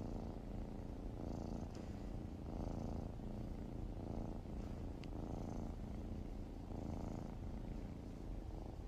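Domestic kitten purring close up, a steady low rumble that swells and fades with each breath, about once every second or so.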